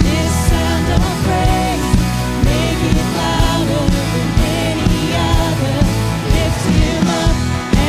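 Worship band playing a contemporary Christian song, with a steady drum beat, sustained instrument notes and singing.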